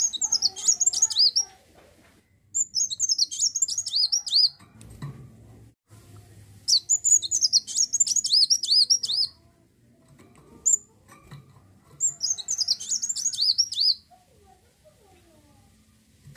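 Kolibri wulung (a sunbird) singing: four bursts of rapid, high, twittering notes, each about two seconds long, with short pauses in between and a single short note in one of them.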